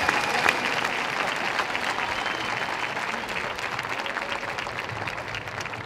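A large crowd applauding, the clapping slowly dying down toward the end.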